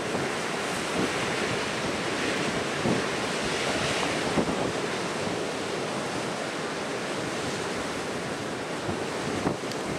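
Ocean surf breaking and washing in, a steady rushing noise that swells a little louder a few seconds in, with wind buffeting the microphone.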